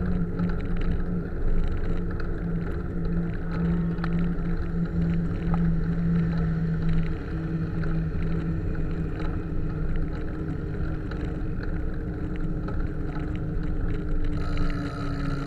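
Road traffic heard from a moving bicycle: the steady engine hum of nearby motor vehicles, one drone holding steady and then another slowly dropping in pitch, over rushing wind noise on the microphone.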